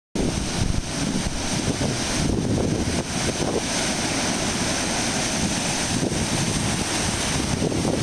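Pacific Ocean surf breaking and washing over shoreline rocks: a steady rush of foaming water.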